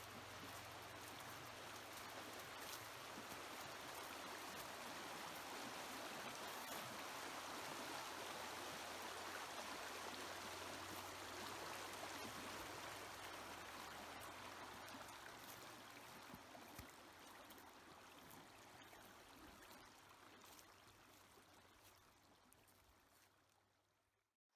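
Verde River running over rocks and shallow riffles, a steady rush of moving water. It swells toward the middle and then fades away near the end.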